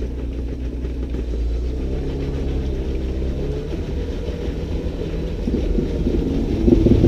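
Jeep Wrangler's engine working under load as it crawls up a rock ledge, the engine note rising and growing louder near the end.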